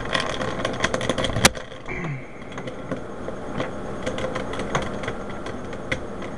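Plastic Rubik's Cube pieces clicking and rattling as they are handled and pressed into a partly reassembled cube. A quick run of small clicks ends in one sharp snap about a second and a half in, followed by scattered lighter clicks.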